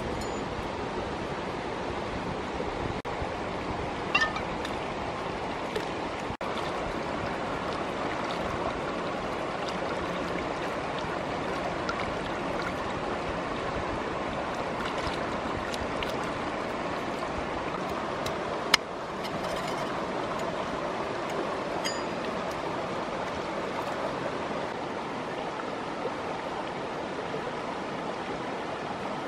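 Shallow stream running steadily over stones, a continuous rushing of water, with a few brief sharp clicks, the loudest a little past the middle.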